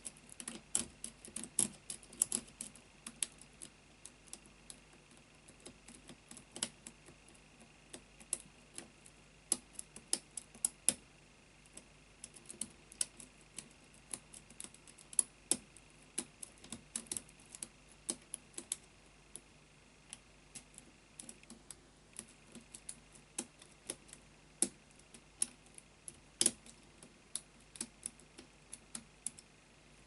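Lock pick and tension wrench working the pins of an Avocet padlock: many small, irregular metallic clicks and taps as the tension is rocked and the pins are picked, trying for a false set.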